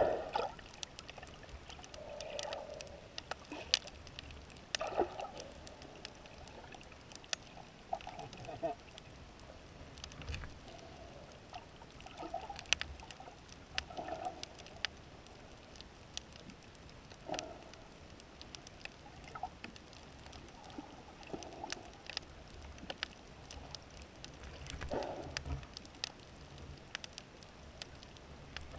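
Quiet underwater ambience picked up through an action camera's waterproof housing on a shallow rocky seabed: sharp clicks and crackles scattered irregularly, with short muffled swishes of moving water every second or two.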